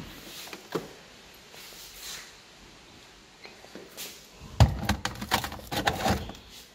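Things being handled in a refrigerator: a single knock about a second in, then a cluster of sharp knocks and clatter near the end as a glass jar is set down on a fridge shelf and the plastic containers beside it are shifted.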